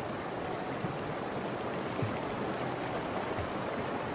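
Fast-flowing river water rushing in a steady wash.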